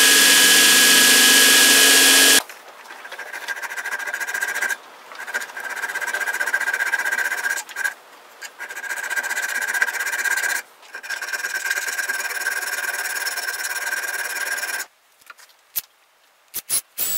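A belt grinder runs loudly with a steady tone as an O1 tool-steel knife blank is ground in a jig, then cuts off suddenly. A hand file then rasps steadily over the steel tang clamped in a vise, pausing briefly a few times. A few light clicks come near the end.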